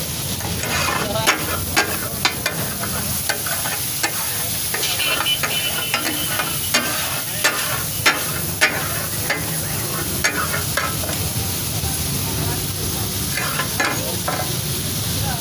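Fish takatak sizzling and frying in oil on a large flat metal griddle, with irregular sharp clacks of metal spatulas striking the griddle as the fish is chopped and stirred.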